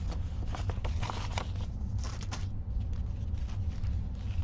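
A paper instruction sheet and a thick, stiff printed cross-stitch canvas rustling and scraping as they are handled and turned over. There are several short rustles in the first second and a half and another cluster about two seconds in, over a steady low hum.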